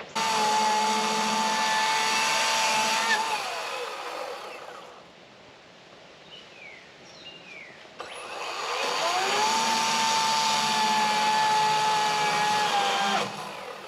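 Electric power saw cutting a tree branch in two bursts, a steady high motor whine: the first starts instantly and runs about three seconds before winding down in pitch, the second spins up about eight seconds in and runs about five seconds before cutting off.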